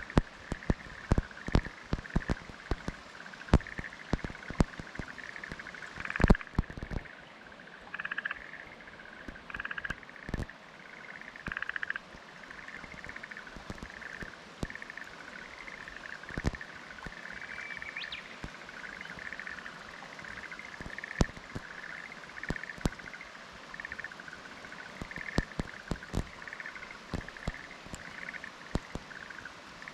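Black-spotted pond frogs (Tonosama frogs) calling in a chorus of repeated pulsing calls, with several louder calls close by between about 6 and 12 seconds in. Sharp clicks and taps are scattered throughout, thickest in the first seven seconds.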